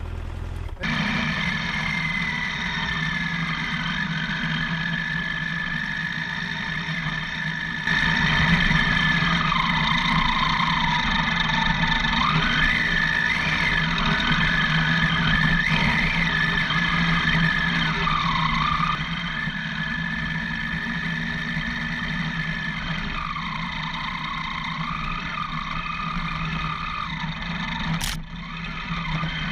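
Motorcycle engine running as the bike rides a rough, rocky dirt track, the revs rising and falling with the throttle.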